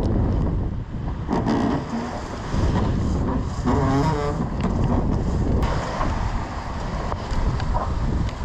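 Wind buffeting the microphone over the rush of the sea aboard a large sailing yacht under way. Two short, wavering pitched whines come about a second and a half and four seconds in.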